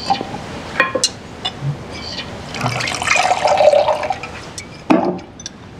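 Red wine poured from a glass decanter into a wine glass: a splashing, gurgling stream lasting about a second and a half, a little under halfway in, with a short click about a second in.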